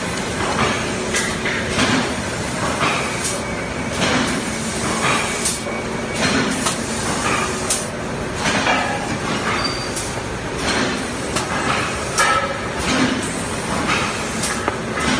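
Cement roof tile extrusion machine running: a steady mechanical din with frequent irregular metallic clanks and knocks as the tile moulds are driven along the line.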